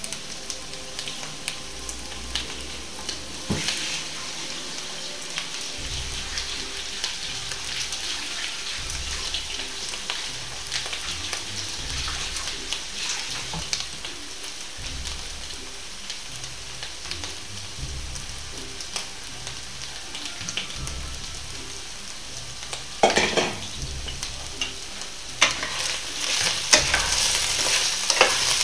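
Meat patties sizzling in a frying pan, the fat crackling steadily with scattered small pops. A few sharper clicks come near the end, and the sizzling grows louder.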